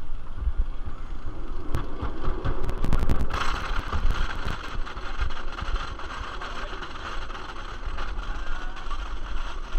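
White Lightning wooden roller coaster train rolling on its track: a steady low rumble of the wheels, a quick cluster of clicks and knocks about two to three seconds in, then a loud, even rushing clatter that holds for the rest of the ride segment.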